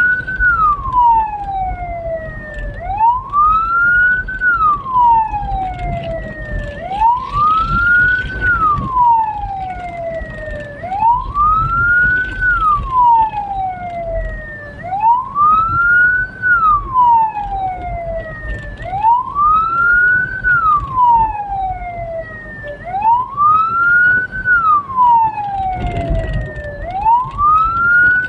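Hearse's siren wailing in a steady cycle: each sweep rises quickly in pitch, then falls more slowly, repeating about every four seconds, over a low road and engine rumble.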